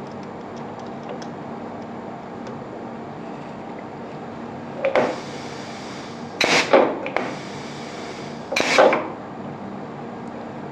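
Pneumatic solenoid valve cycling a double-acting air cylinder: three knocks with bursts of hissing exhaust air through stainless steel exhaust silencer regulators, starting about halfway in, as the cylinder rod strokes out and back. The regulators are wound out, so the exhaust is less restricted and the cylinder moves faster.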